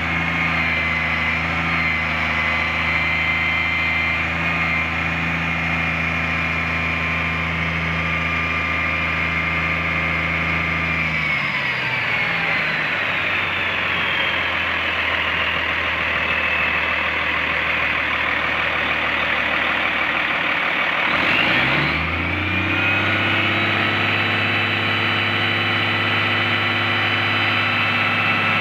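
Boom truck's Caterpillar diesel engine running steadily while the hydraulic crane boom is raised. About a third of the way in its pitch glides down into a rougher, noisier sound, and it climbs back to a steady note about three-quarters of the way through.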